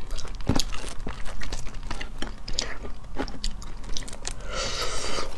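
Close-miked biting and chewing of cooked shell-on crustaceans: irregular crunches and clicks of shell cracking between the teeth, with a short hiss near the end.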